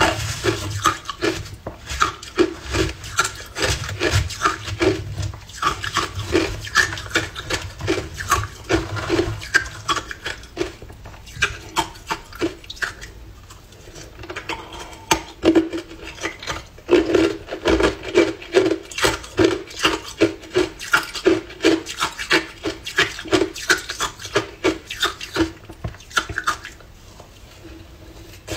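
Hard ice chunks dusted with matcha powder being crunched between the teeth, rapid sharp crunches a few per second, easing off about halfway through and again near the end before resuming.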